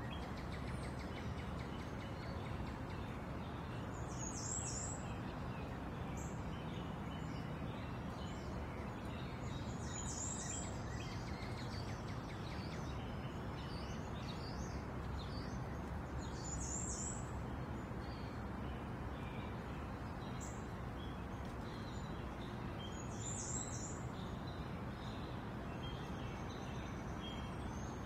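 Birds chirping over steady outdoor background noise. A short, high-pitched call phrase repeats about every six seconds, with fainter chirps in between.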